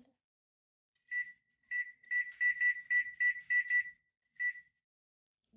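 Electronic oven control panel beeping as its temperature-up key is pressed to raise the set bake temperature: two single beeps, then a quick run of about seven beeps at roughly four a second, then one more. Each beep is the same short, high tone.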